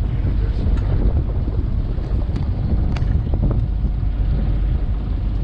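Wind buffeting the microphone aboard a boat: a steady low rumbling roar, with a few faint clicks or knocks, the clearest about three seconds in.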